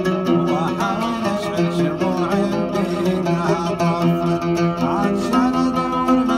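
Middle Eastern music carried by a plucked string instrument, playing steadily without a break.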